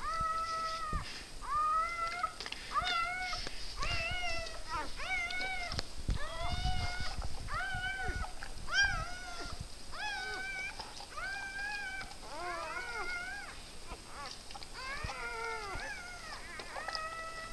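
Newborn puppies crying: short, high calls that rise and fall in pitch, repeated about once a second, with two puppies sometimes overlapping.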